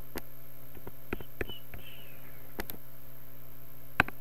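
Computer mouse clicks, a few sharp ones spread out and one louder click near the end, over a steady low electrical hum.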